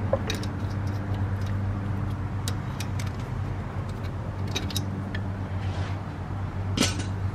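Light clicks and knocks of rubber vacuum hoses and fittings being handled in a car's engine bay, over a steady low hum.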